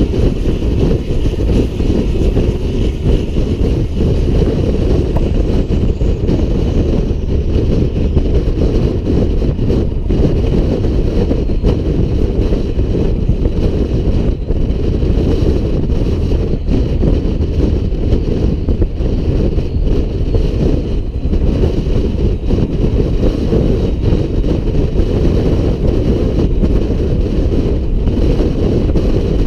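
Peterbilt 388 semi truck driving down the road with a trailer in tow: a steady, unbroken drone of engine and road noise, with some wind noise.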